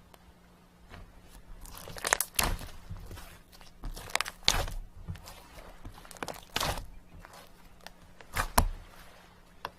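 Irregular crunching and crinkling noises in short clusters of a few bursts each, about four clusters with quiet gaps between.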